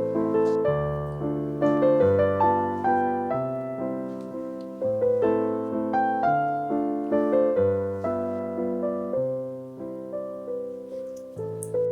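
Background music: a gentle piano melody over sustained chords.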